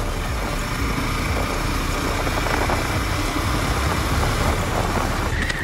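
Motorcycle engine running steadily while being ridden along a road, mixed with steady road and wind noise.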